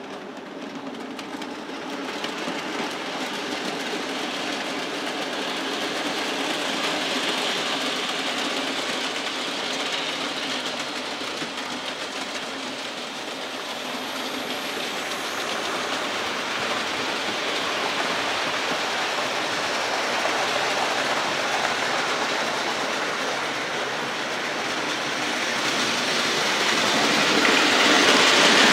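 OO gauge model trains running on the layout's track: a steady whirr and rattle of a locomotive's motor and the coach wheels over the rails. It builds up over the first couple of seconds as the train gets moving, and grows louder near the end as a train passes close.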